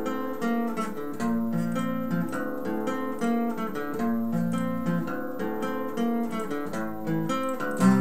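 Acoustic guitar playing a rhythmic, repeating chord pattern of strummed and picked notes, with one louder strummed chord near the end.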